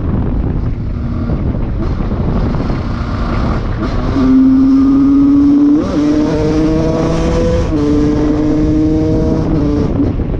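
Husqvarna SM 125 two-stroke supermoto with an aftermarket handmade exhaust, ridden and pulling steadily: its engine note climbs slowly, breaks briefly about six seconds in and drops near eight seconds as if shifting up, over heavy wind noise on the microphone.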